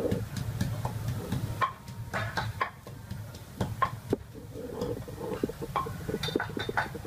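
Wooden pestle pounding and grinding in a clay mortar: irregular knocks and thuds, several to a second, over a low rumble.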